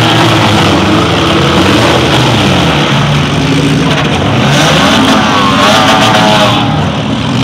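Several compact demolition-derby cars' engines running hard and revving, pitch rising and falling repeatedly as the cars accelerate and reverse into each other.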